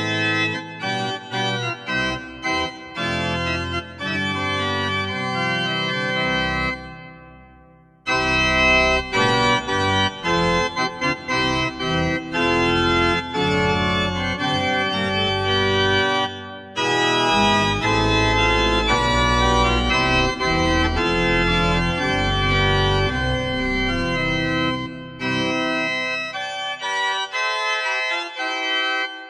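Dexibell Classico L3 digital organ being played: sustained organ chords over deep bass notes. About seven seconds in the sound dies away, and the playing resumes a second later.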